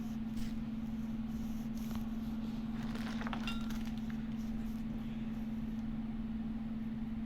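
A steady low hum, with faint rustling and soft handling noises as a human-hair weave bundle is run through the fingers and shaken.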